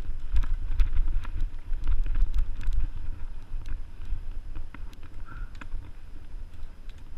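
Mountain bike riding over dirt singletrack: wind rumble on the action camera's microphone, heavier in the first few seconds, with frequent sharp clicks and rattles from the bike jolting over the trail.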